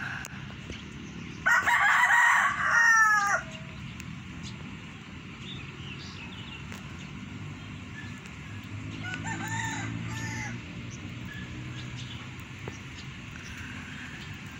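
A rooster crowing once, loud, for about two seconds starting about one and a half seconds in, its last note falling away. Fainter short calls follow around the middle.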